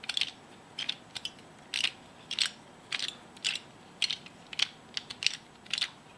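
HeShu Pyraminx Gear puzzle's plastic gear teeth clicking and clattering as its faces are twisted by hand, a short ratcheting burst about twice a second.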